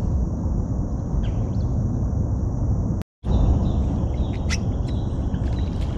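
Wind buffeting the microphone as a steady low rush, with a few faint bird chirps. The sound drops out completely for a moment about three seconds in.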